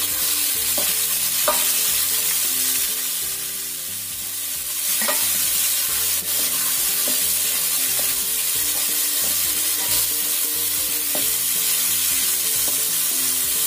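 Sliced string beans sizzling in hot oil in a wok, stirred and tossed with a spatula that now and then scrapes against the pan.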